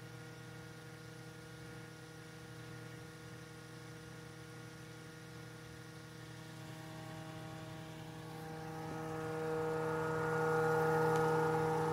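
Homemade neodymium-magnet motor/generator running: a steady electrical hum made of several steady tones, growing louder near the end.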